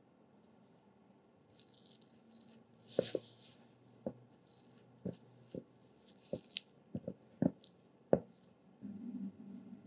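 A silicone spatula stirs and scrapes dry macaron-shell ingredients into a thick paste in a stainless steel bowl. The mixing rustles softly at first. From about three seconds in there are a dozen or so sharp taps and knocks as the spatula strikes the metal bowl.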